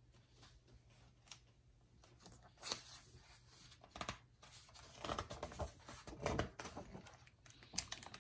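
Faint paper rustling and soft handling noises as a page of a paperback picture book is turned, busiest about halfway through.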